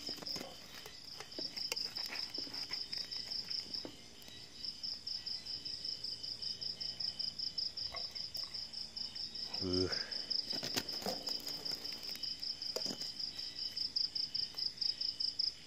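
Night insects chirping in a fast, steady pulsing trill that breaks off briefly about a second in and again around four seconds. A metal spoon scrapes and clicks against an aluminium rice pot now and then.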